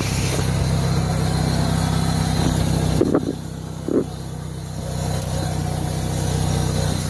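Pontiac Sunfire's engine idling steadily with the hood open. It has a rough sound that the owner puts down to the belts and pulleys rather than knocking. It gets quieter for a couple of seconds around the middle, with two brief short sounds about three and four seconds in.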